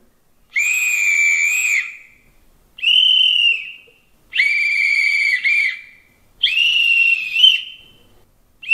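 Conductor's whistle sound samples, in several variants, played from the ESU LokSound 5 sound decoder through the loudspeaker of a gauge 1 model steam locomotive. There are four short, high whistle blasts with pauses between them, and a fifth begins at the very end.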